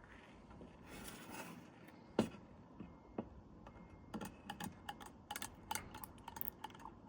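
Light metallic clicks and ticks from the Teletype Model 35 typing unit's small levers and parts as they are handled and oiled. There is one sharper click about two seconds in, then a quick run of small clicks in the second half.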